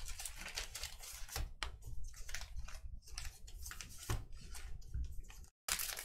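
Light, irregular clicks and rustles of trading-card boxes and foil packs being handled on a table. The sound cuts out briefly near the end.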